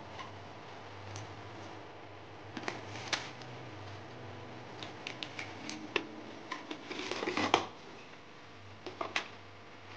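A cardboard box and a stack of paper-wrapped alcohol prep pad packets being handled: scattered crinkles, taps and rustles, building to a denser rustle and a sharp snap about seven and a half seconds in, over a low steady hum.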